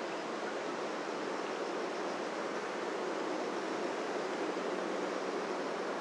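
Steady, even rushing noise with no distinct events in it.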